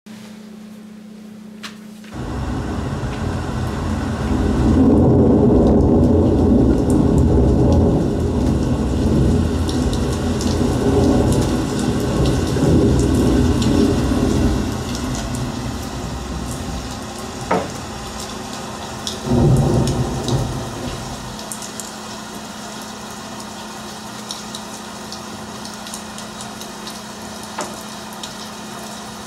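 Thunderstorm with rain: a heavy rumble of thunder and rain sets in about two seconds in, with a sharp crack and another roll of thunder a few seconds before it eases, then lighter rain with scattered drips. A steady low hum lies underneath.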